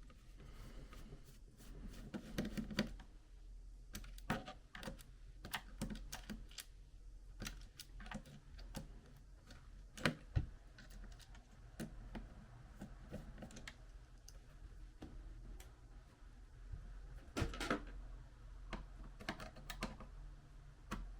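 Irregular small clicks and taps of hand work on a laptop's plastic bottom case, its screws and a screwdriver, with a sharper knock about ten seconds in and a cluster of louder clicks near the end.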